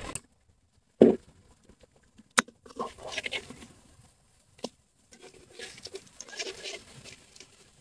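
A metal spatula clinks and scrapes in a steel wok as pieces of frying food are turned over a wood fire. There is a thump about a second in, single clicks after it, and two stretches of scraping and stirring.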